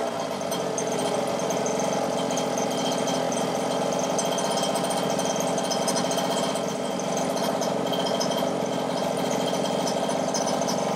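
Chung Yang 29cc two-stroke engine of a Losi 5ive-T 1/5-scale RC truck idling steadily during a break-in heat cycle.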